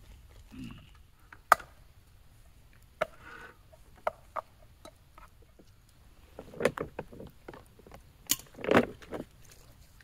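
Scattered sharp knocks and clatter of food preparation with utensils, with two short clusters of rustling and handling noise near the end.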